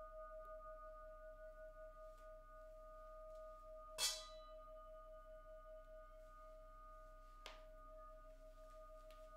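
Quartz crystal singing instruments ringing with a steady, slowly wavering tone. About four seconds in a bright struck ring sounds on the quartz crystal pyramid and decays, and a softer strike comes near the end.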